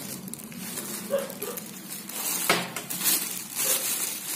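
Clear plastic wrapping crinkling and rustling as hands handle a plastic-wrapped mixer grinder base, with a sharper crackle about two and a half seconds in.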